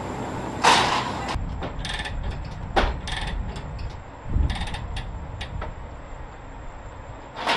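Steel tie-down chains rattling and clinking in short bursts, with a ratchet chain binder being worked, as a tracked armored vehicle is chained down to a trailer. Two louder noisy rushes come about a second in and again at the end.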